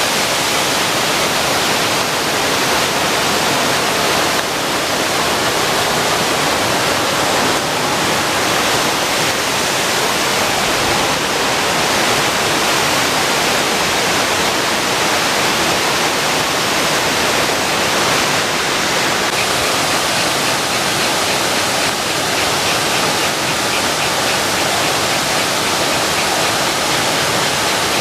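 Steady rushing of Shiraito Falls, a wide waterfall of many thin streams pouring down a rock face, heard close and holding an even level throughout.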